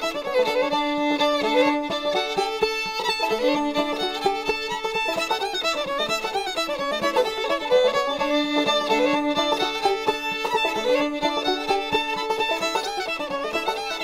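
Background music: a quick, busy melody over held lower notes.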